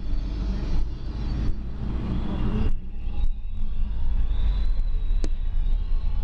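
Car driving, heard from inside the cabin: a steady low rumble of engine and tyre noise, with a single small click about five seconds in.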